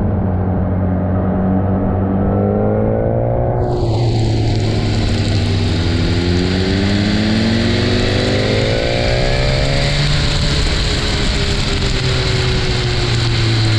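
Motorcycle engine heard from the bike itself, running steadily with its pitch climbing and dropping several times as the rider accelerates and eases off through the curves. A loud rushing hiss of wind and wet-road noise joins about four seconds in.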